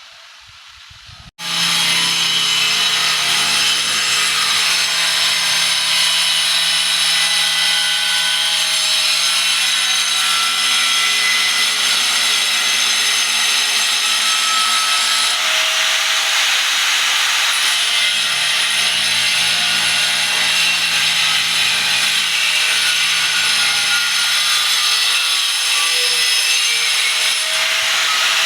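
Electric power tool switched on abruptly about a second and a half in, then running loud and steady with a whining motor, working on wood or board.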